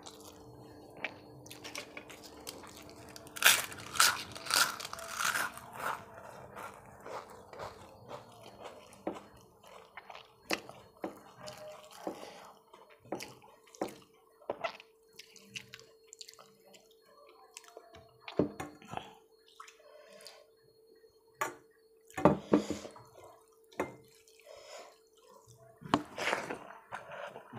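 Close-miked eating by hand: scattered wet chewing, lip smacks and clicks as rice and fried potato are chewed and mixed with the fingers on a steel plate. A louder run of mouth sounds comes a few seconds in, with more bursts near the end, over a faint steady hum.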